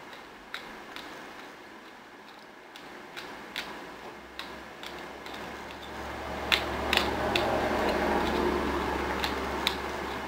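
Scattered light clicks of a metal spoon against a glass bowl while eating a thick pudding. About six seconds in, a low droning noise of unclear source swells up and becomes the loudest sound.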